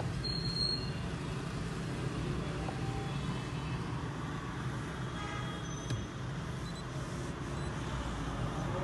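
Steady low rumble of running road vehicles, with a short high beep about a quarter of a second in.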